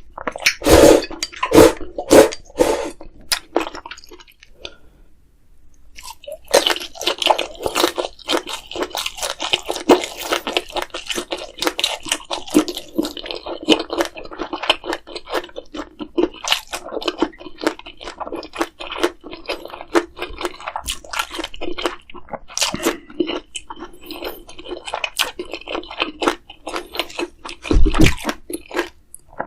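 Close-miked eating: crunchy bites and chewing, going quiet for a couple of seconds, then a long run of steady crunching and chewing. A single low thump comes near the end.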